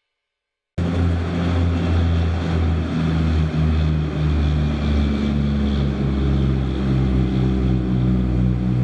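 Heavy diesel engine of a large mining machine running steadily, cutting in suddenly about a second in, with a deep, even hum.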